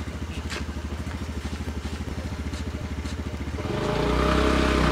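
A motorcycle engine runs with a fast, even pulsing beat and gets louder about three and a half seconds in as it draws near.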